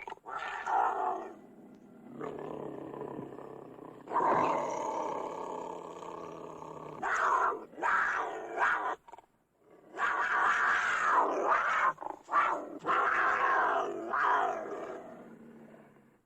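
Cougar snarling and growling in a run of rough calls, several long snarls broken by shorter, sharper ones, dying away near the end.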